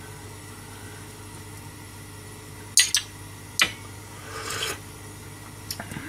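A metal ladle clinking sharply against a soup pan three times about three seconds in, then a brief pour of soup from the ladle into a small porcelain dish, over a steady low hum.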